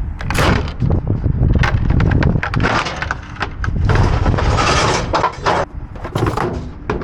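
Junk being shifted around in a jam-packed machine-shop dumpster: a run of irregular clanks, clatters and scrapes of metal and other scrap knocking together, over a steady low rumble.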